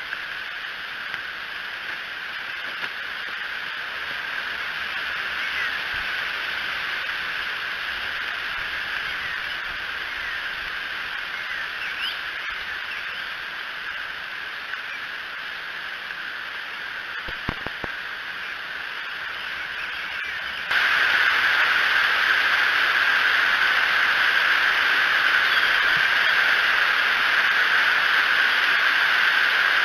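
Steady hiss of rain on the nest-cam microphone, with a few faint bird chirps. About two-thirds of the way through it turns abruptly louder and stays that way.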